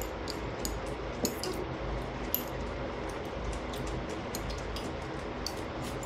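Metal chopsticks and spoons clicking and clinking against plates, bowls and glass food containers in many light, scattered taps, over a steady low hum.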